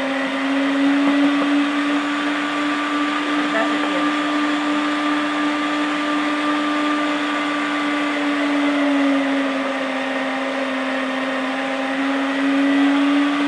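Electric meat grinder running steadily, grinding garlic and hot peppers; its motor holds one steady hum that wavers slightly in pitch as the load changes.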